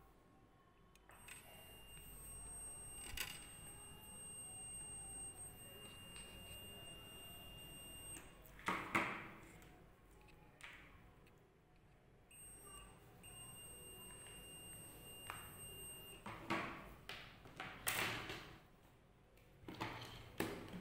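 Multimeter continuity buzzer giving a steady high beep twice, once for about seven seconds and then for about four, the sign that the probes are bridging a connected path on the PCB. Light clicks and rustles of probes and wires being handled in between.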